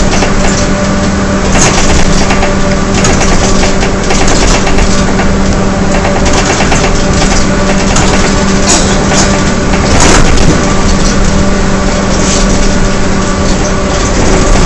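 Inside a 2009 Gillig Advantage transit bus under way: its Cummins ISL diesel and Allison B400R transmission give a steady drone with a held, even-pitched howl over loud road noise. Frequent rattles and knocks cut through it, the sharpest about ten seconds in.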